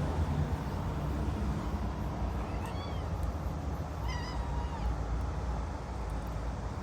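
A hearing-impaired cat giving two short meows, about a second and a half apart, over a steady low rumble.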